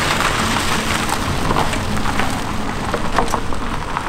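Car tyres crunching over loose gravel as a Toyota Prius drives across a gravel lot: a steady gritty rustle dotted with many small crackles and pops.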